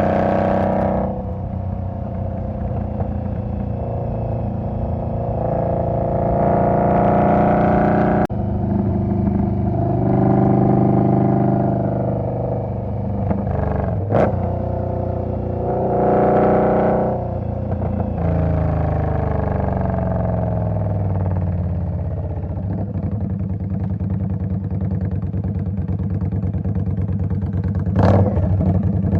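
2020 Indian Scout's V-twin motorcycle engine running under way, its pitch rising as it revs up and falling as it eases off, several times over. A few sharp clicks cut in.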